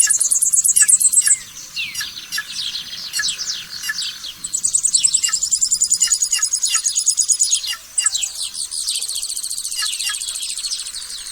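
Several songbirds singing at dawn in the northeastern Brazilian sertão. Long, very high, rapid trills come in three runs: at the start, from about four and a half seconds, and from about eight seconds. Short downward-sliding chirps from other birds fall between them.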